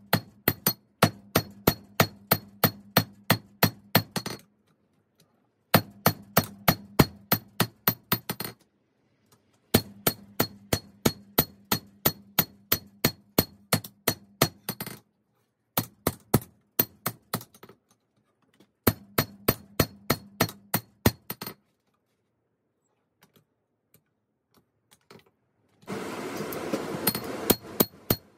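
Hand hammer striking hot 5160 spring steel on an anvil while forging a machete blade, about three to four ringing blows a second in runs of several seconds with short pauses. Near the end a brief rushing noise, then the hammering starts again.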